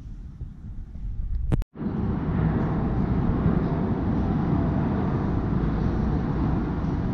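Steady low outdoor rumble with no clear rhythm or tone. It starts abruptly after a short click and a moment of silence at an edit cut about a second and a half in.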